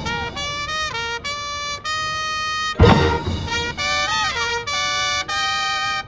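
High school marching band's horn line playing sustained, jazz-styled chords, with a loud full-band percussion hit about three seconds in and a short sliding, swooping phrase just after it.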